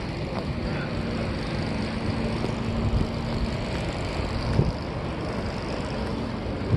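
Outdoor wind buffeting the microphone, with a steady low hum that stops about four and a half seconds in.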